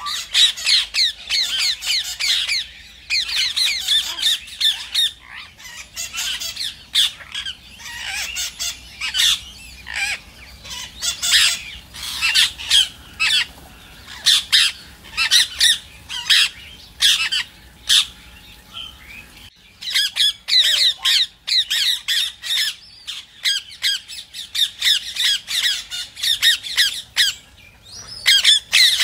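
Rose-ringed (Indian ringneck) parakeets squawking and chattering: a dense run of rapid, high-pitched screeching calls, with a short lull about two-thirds of the way through.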